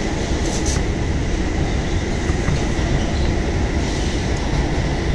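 Subway train running at speed, heard from inside an R211A car: a steady loud rumble of wheels on rail, with a faint steady high whine over it.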